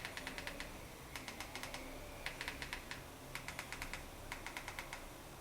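Buttons of a Xiaomi Mi TV Stick Bluetooth remote control clicked repeatedly in quick runs of several presses, with short pauses between the runs.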